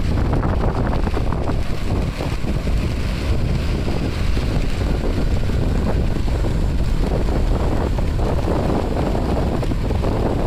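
Strong typhoon-driven wind buffeting the microphone in a steady, gusting rumble, with ocean surf washing behind it.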